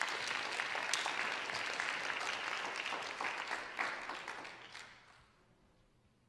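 Audience applauding with a dense patter of hand claps that fades out about five seconds in.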